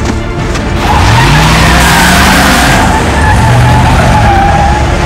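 A car pulling away hard on dirt: the engine revs up, its note climbing from about a second in and swelling again later, over the noise of spinning, skidding tyres throwing up gravel.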